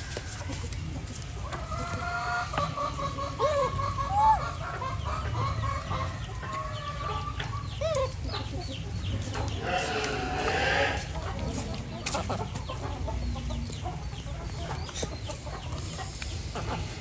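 Chickens clucking and calling, in a drawn-out run of calls and then a louder call about ten seconds in, over small scattered clicks and taps.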